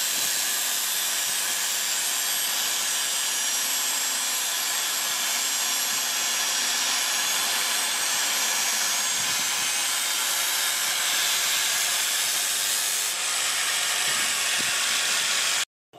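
Handheld angle grinder with an abrasive disc running against a steel knife blade cut from a chainsaw bar, grinding the edge in a steady hiss. The sound stops abruptly near the end.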